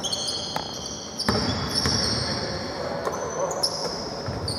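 Basketball bouncing on the court floor during play, a few sharp thuds, with high-pitched shoe squeaks.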